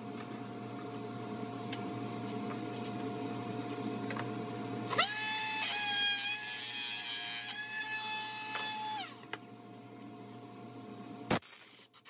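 Ryobi 18V cordless trim router spinning up about five seconds in, running with a high whine for about four seconds and winding down. A steady low noise comes before it, and a single sharp knock comes near the end.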